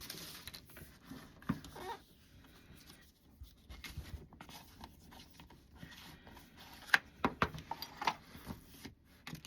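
Hands handling and pressing an icy slime, making faint soft sticky sounds and scattered small clicks. The clicks bunch up about a second and a half in and again near the end.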